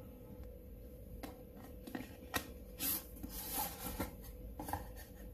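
Cardboard packaging handled: an inner box slid out of its outer sleeve, with faint scattered rubs, scrapes and light taps and one brief hissing scrape near the middle.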